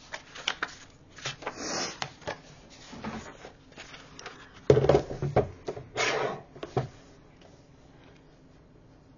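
Paper sheets being handled and rustling on a cutting mat, with scattered light taps. About halfway through comes a single heavier thump, the loudest sound, as a plastic paper trimmer is set down on the mat, followed by more paper rustling and then quieter handling.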